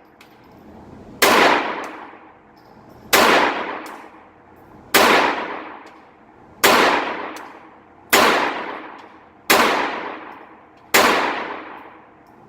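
Phoenix Arms .22 LR semi-auto pistol firing seven single shots at a steady pace, one about every one and a half to two seconds, each crack ringing out for about a second in a reverberant indoor range.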